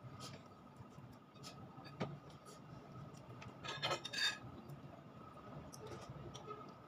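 Metal spoon and fork scraping and clinking against a plate with a few quiet, scattered strokes; a brief cluster of scrapes about four seconds in is the loudest.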